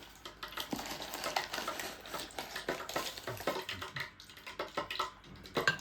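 A spoon clinking and tapping against a bowl in light, irregular clicks while cornstarch is scooped in for the dry breading.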